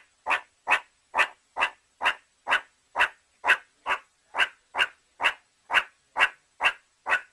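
Meerkat calling: a steady series of short, sharp calls about two a second, some sixteen in all, evenly spaced with gaps between.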